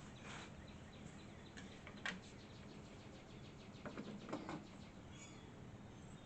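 Faint clicks and light knocks of small metal parts being handled and fitted, with a quick run of fine ticks around the middle, during reassembly of a vintage table saw's blade guard.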